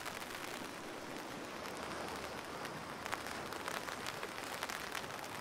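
Steady rain falling, with scattered drops ticking sharply here and there.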